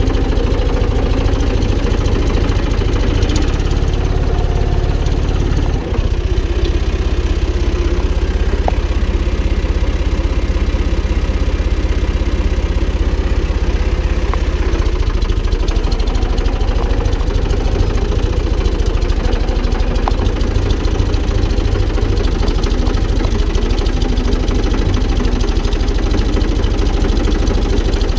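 Valtra BF-75 tractor's diesel engine running steadily at an even pace.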